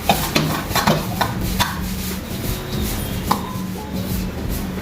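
Kitchen utensils knocking and scraping in irregular strokes, thickest in the first two seconds and sparser after, over a steady low hum.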